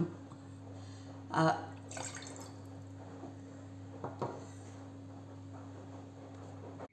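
Quiet kitchen room tone: a steady low hum with a few faint clicks, and a brief voice sound about a second and a half in.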